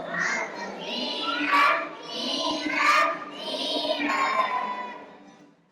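A group of children's voices singing or chanting together in a large room, fading away in the last second.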